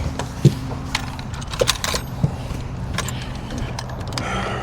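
Scattered sharp metallic clicks and clinks at irregular intervals over a steady low hum from the boat's motor.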